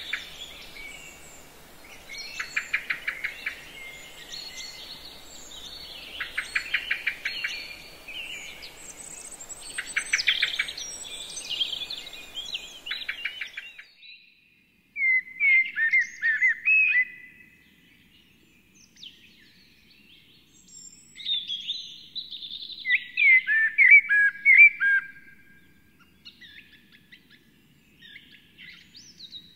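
Songbirds singing: repeated short songs built of rapid trills over a faint background hiss, then after a sudden break midway, a different bird's warbling phrases with falling notes in two bursts, followed by quieter scattered calls.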